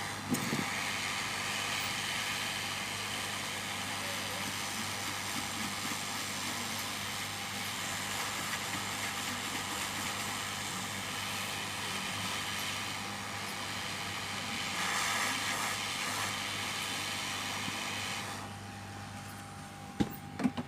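Hot air rework station blowing a steady rush of air at high heat to desolder a phone's charging port; it starts just after the opening and cuts off a couple of seconds before the end, followed by a few sharp clicks.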